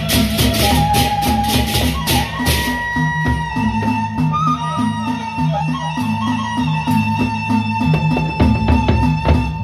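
Sasak gendang beleq ensemble playing: the large double-headed barrel drums beat a steady rhythm under low pitched notes and a long held melody line, with hand cymbals clashing. The cymbal clashing is heavy for the first couple of seconds, then thins out.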